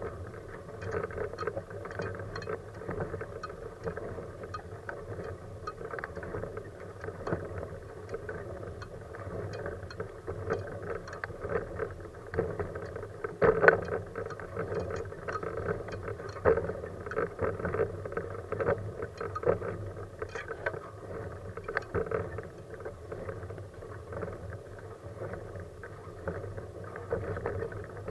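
Kuschall K-Series manual wheelchair with a FreeWheel front wheel rolling over asphalt, its frame rattling and clicking constantly over the road surface. There is one sharp, louder knock about halfway through.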